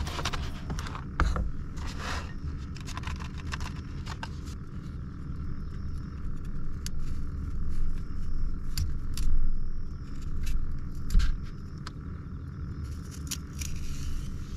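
Parchment paper crinkling as it is lifted off a cutting board, then a small kitchen knife scraping and cutting a celery stalk, with scattered short sharp clicks. A low steady rumble runs underneath.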